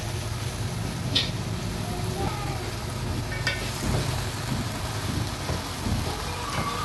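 Spatula stirring sliced gourd and raw onions in a nonstick karahi, with two sharp clicks of utensil on pan, over a steady low hum.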